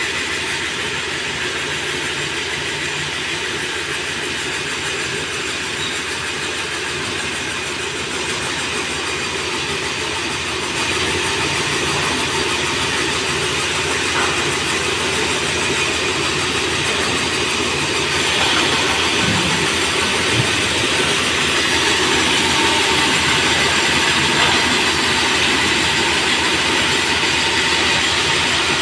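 Steady din of sawmill machinery: conveyor rollers and saws running, with a rattling rumble. It grows a little louder about a third of the way in and again past the middle.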